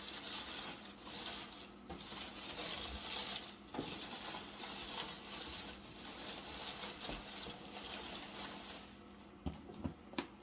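Packing paper rustling and crinkling as hands rummage through a shipping box, followed by a few light knocks near the end.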